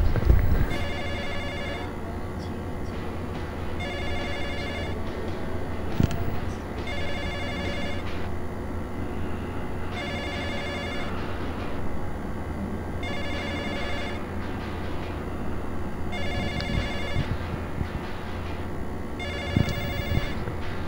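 Telephone ringing with an electronic ring about a second long, repeating about every three seconds, seven rings in all, over a steady low hum.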